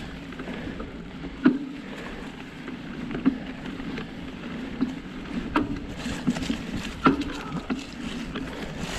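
Mountain bike with fat 29+ tyres moving along a dirt trail: a steady rolling rumble with regular knocks and rattles from the bike and trail.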